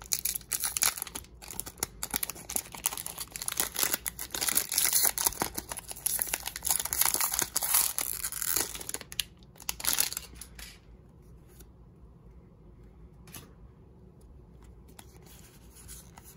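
Foil wrapper of a Pokémon trading-card booster pack being torn open and crinkled: a dense run of rips and crackles that stops about ten seconds in, leaving only faint rustles.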